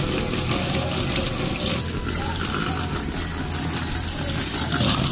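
Garden-hose jet spraying onto a small plastic turbine wheel and splashing into a tub of water: a steady rush of spray, a little louder near the end.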